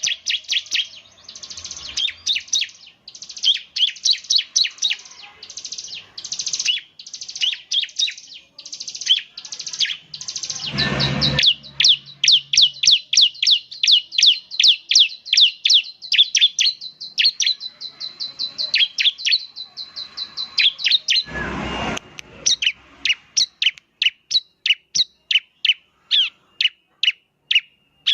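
Bar-winged prinia (ciblek) singing loud, rapid runs of sharp high chirps. Partway through it breaks into a quick trill over a held high note, then settles into evenly spaced chirps about three a second. Two brief bursts of noise come near the middle and later on.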